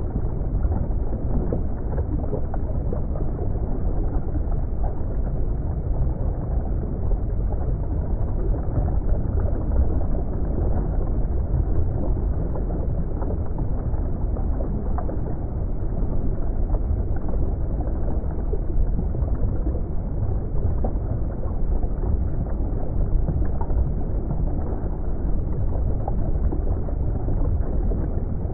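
Underwater ambience: a steady, muffled wash of deep water noise, strongest in the low end, with no distinct events.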